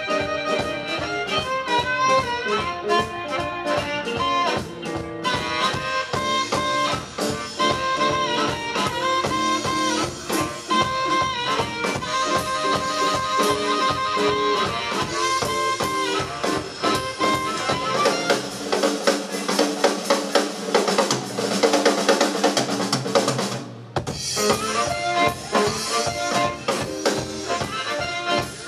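Live blues band playing: amplified harmonica over electric guitar, bass and drums. About two-thirds of the way through, the bass end drops away for several seconds. The band then stops for an instant and comes back in.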